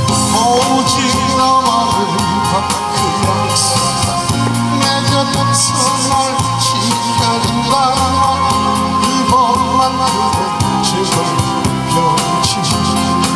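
A man singing into a microphone through loudspeakers, his voice wavering with vibrato, over electronic keyboard accompaniment with a steady drum beat.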